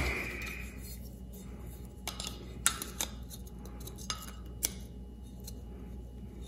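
Light metallic clicks and clinks of a clutch release bearing being worked onto its release fork by hand: a knock with a brief ring at the start, then a handful of scattered clicks.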